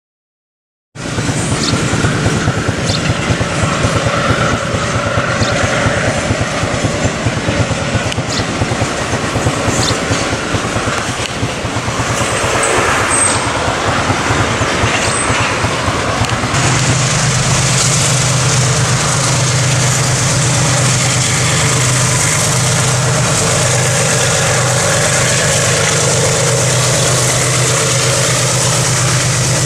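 A freight train passing close by: wagons rolling and clattering on the rails, with a few sharp clicks, then from about halfway a steady deep drone of the two GE ES43BBi diesel-electric helper locomotives going by.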